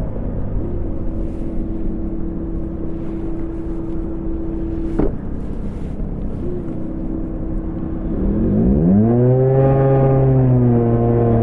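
Honda Gyro scooter engine running under a steady hum, with a sharp click about five seconds in; about eight seconds in the engine revs up, its pitch rising over about a second, then holds at speed.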